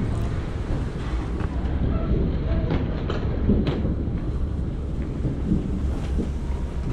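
Low steady rumble of wheeled carry-on suitcases rolling along the floor, with footsteps and a few sharp clicks about halfway through.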